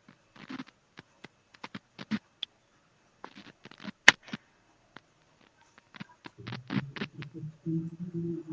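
Scattered light taps and scratches in a small room, with one sharp click about four seconds in and a faint low murmur from about six and a half seconds on.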